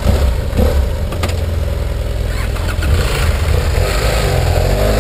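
BMW F800 GS motorcycle's parallel-twin engine idling with a steady low rumble, with a couple of sharp knocks in the first second and a half.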